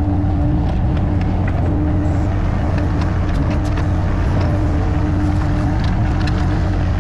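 Diesel excavator engine running steadily under load while digging, with a higher whine that comes and goes and a few faint clicks.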